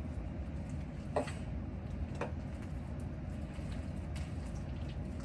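Steady low rumble of background noise, with a few faint soft squishes and clicks from slime being kneaded and mixed by hand, about one and two seconds in.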